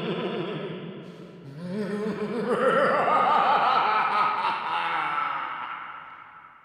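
Horror sound effect: an eerie, voice-like wail with a fast wavering wobble, rising in pitch about a second and a half in, then slowly fading away.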